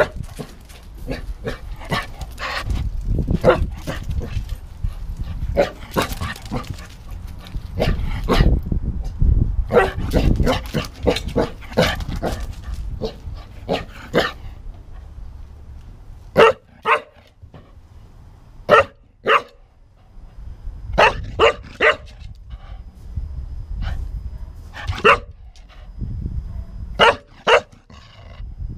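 English cocker spaniel barking repeatedly in short, sharp barks, often two or three in quick succession, mostly through the second half. In the first half the barks are mixed with loud close-up bumping and rustling right at the microphone.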